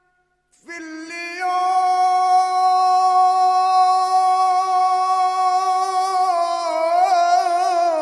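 A singer holds one long note in an Arabic vocal line. It enters after a short silence, swells about a second in, and wavers in ornamented turns near the end before fading.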